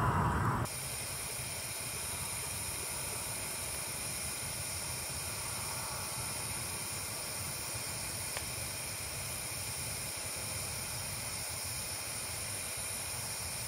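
A mantle lantern's burner hissing steadily while it burns. Before it, a louder low rushing sound cuts off under a second in.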